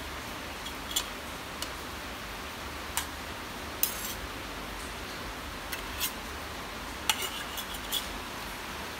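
A knife clicking and tapping against a plate as a cake is cut: about a dozen short, sharp clicks, some in quick little clusters, over a steady background hiss.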